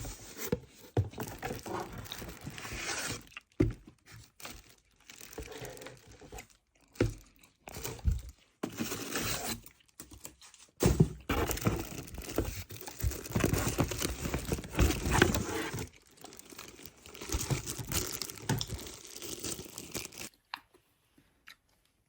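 Packaging being torn open and crumpled by hand, in irregular bursts of rustling and tearing that stop near the end.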